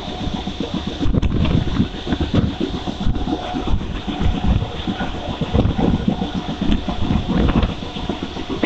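Wind buffeting the microphone of a phone held out on a moving Mumbai suburban local train, in uneven low gusts over the train's steady running noise.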